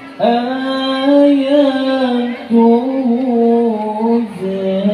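A man reciting the Quran in melodic tilawah style, amplified through a microphone and loudspeaker. He holds long, wavering notes across two drawn-out phrases.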